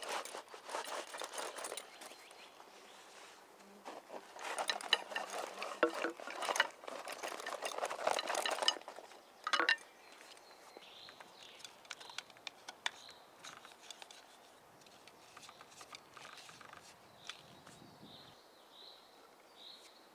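Wooden frame-saw parts and gear being handled on a fur mat: rustling and light clacking in two busy spells, with a sharp knock about halfway through. Then quieter handling, with short high chirps repeating near the end.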